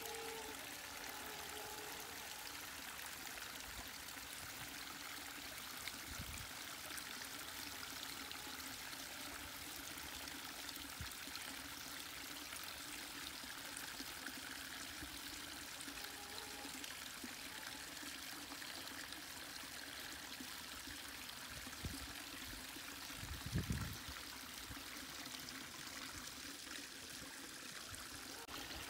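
Snowmelt water trickling and splashing down between rocks into a foamy pool, a steady rushing flow. A low thump about four-fifths of the way through.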